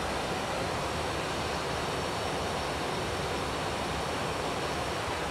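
Steady rushing cabin noise on the flight deck of an Airbus A321 in descent, the air noise of the aircraft in flight, with no change in level throughout.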